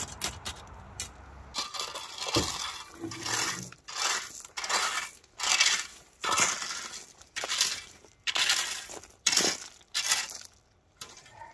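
Rake scraping through crushed-stone track ballast, the stones crunching and clinking in repeated strokes about once a second.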